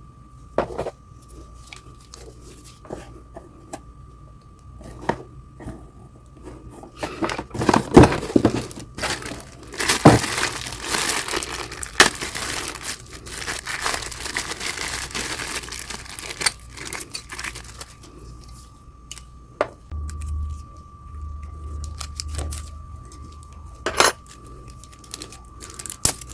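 Packaging being handled and torn open: rustling and crinkling, busiest in a long dense stretch in the middle, with scattered knocks and clicks from the box and its contents being moved.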